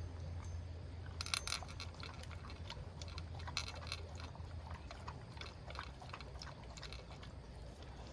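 A small pet eating its breakfast: a run of small, irregular clicks and crunches, densest about a second in, over a low steady hum.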